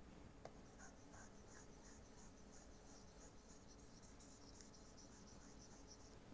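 Very faint, rapid scratching of a stylus rubbed back and forth on a pen tablet, erasing on-screen annotations, with a few light ticks.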